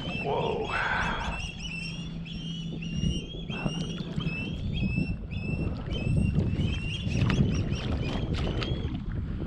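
A hooked grouper thrashing and splashing at the water's surface, heaviest in the middle of the stretch. Over it a bird repeats short high chirps throughout.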